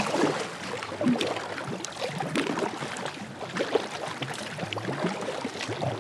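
Kayak paddle strokes: the blades dipping and pulling through river water, with irregular splashing and drips.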